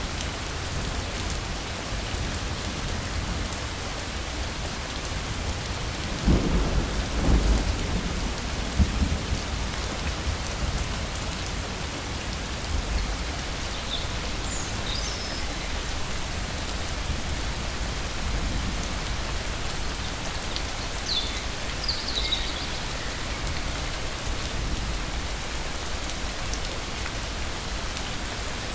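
Steady rain falling, with a low rumble of thunder about six seconds in that lasts a few seconds before fading back into the rain.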